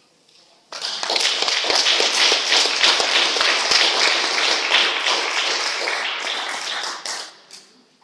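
A small audience bursts into applause under a second in, clapping steadily, then tapering off near the end.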